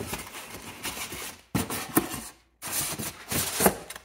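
Polystyrene foam packaging insert rubbing and scraping against a cardboard box as it is handled. The sound comes in three stretches, with two brief pauses.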